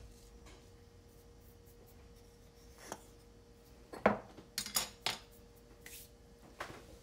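A handful of short wooden knocks and clacks as a lidded bamboo container is set down on the counter and a pair of chopsticks is laid on a wooden cutting board. The loudest knock comes just after four seconds in, followed by a quick cluster of clacks.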